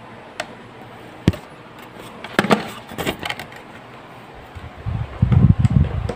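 Handling noise: a few sharp clicks and a knock, then rustling, and from about five seconds in a loud, uneven low rubbing rumble as the recording phone is moved about.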